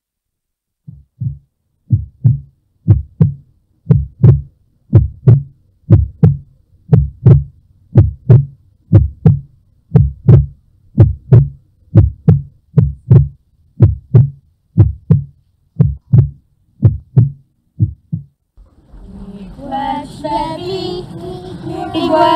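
Recorded human heartbeat: a steady lub-dub about once a second. Near the end the heartbeat stops and a sustained, wavering layer of singing voices comes in.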